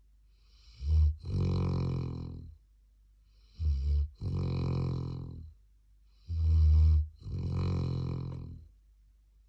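A 13-month-old black Labrador snoring in its sleep: three snoring breaths, about one every three seconds. Each is a brief low buzz followed by a longer drawn-out snore.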